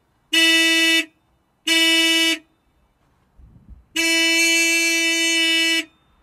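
A horn sounding three times on one steady pitch: two short honks, then a long one.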